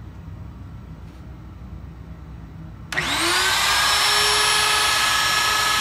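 DeWalt router on a CNC machine switched on about three seconds in, its motor spinning up to full speed within about half a second, then running steadily at a high pitch.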